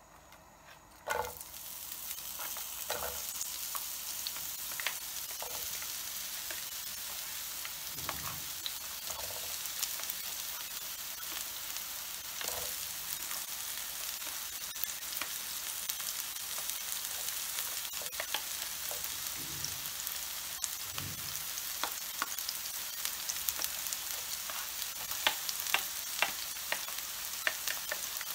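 Sliced red onion tipped into hot oil in a non-stick frying pan about a second in, then sizzling steadily. A few knocks against the pan come through, and sharp crackles near the end.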